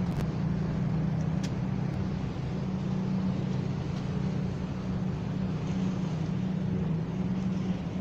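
A steady low engine drone, with a couple of faint clicks near the start.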